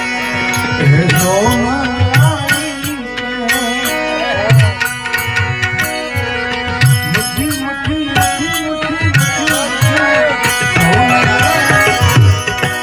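Live Gujarati devotional folk music: a harmonium holds a steady drone while a hand drum beats out a rhythm with deep strokes and an ornamented melody glides up and down in pitch.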